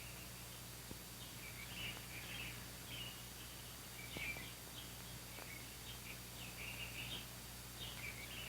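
Small birds chirping in short, repeated calls over the steady low hum and hiss of an old film soundtrack.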